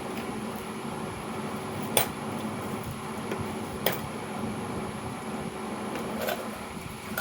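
Hard parts knocking as they are handled and set down: two sharp knocks about two seconds apart and a fainter one near the end, over a steady background hum.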